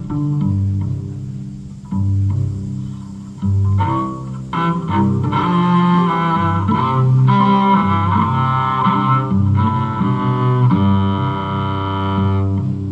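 Live string music: cello playing long bowed notes over a moving low line, with plucked notes in the first few seconds.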